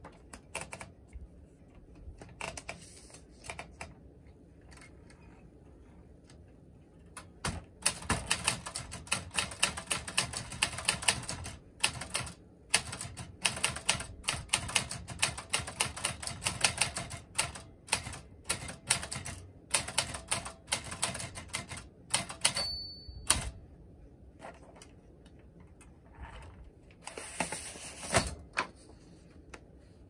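A 1966 Olympia Socialite manual portable typewriter being typed on: an uneven run of sharp key strikes that starts several seconds in and lasts about fifteen seconds, ending with a brief ring. A short burst of rattling follows near the end.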